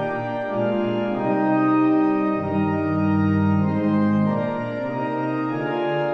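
Organ music: slow, sustained chords, with deeper bass notes held from about two and a half to four and a half seconds in.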